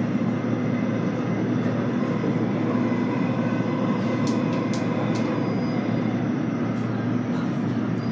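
Steady rumbling noise of a moving vehicle, with a faint steady hum running through it.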